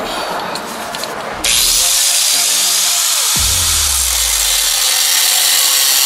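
An electric angle grinder switches on about a second and a half in and runs steadily, its disc cutting into the steel shell of a Kawasaki Mule muffler, with background music underneath.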